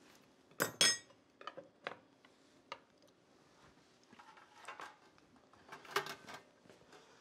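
Metal spoon and kitchen utensils clinking against a plate and metal pans as they are set down and cleared from the counter. Two sharp ringing clinks come just under a second in, then lighter clicks and a short patch of clatter a few seconds later.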